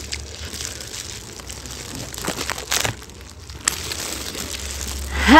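Clear plastic food gloves crinkling while chicken wings are handled and chewed, with scattered small clicks and crackles. Near the end comes the loudest sound: a short vocal cry from one of the eaters, rising then falling in pitch.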